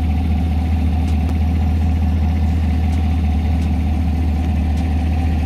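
Chevrolet Camaro SS's 6.2-litre LT1 V8 idling steadily, a constant low drone.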